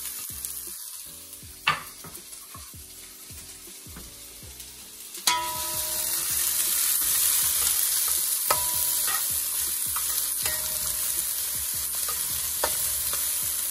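Chopped onions and thyme frying and sizzling in a metal pot on medium heat, with a metal spoon knocking against the pot a few times, some knocks ringing briefly. The sizzle grows louder about five seconds in.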